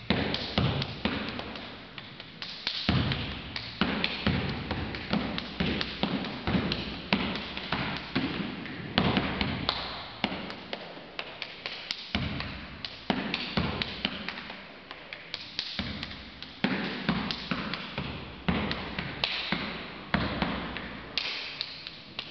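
Drill-team stepping: feet stomping on a rubber gym floor mixed with hand claps and slaps on the body, a quick, uneven run of sharp hits several times a second with louder accents.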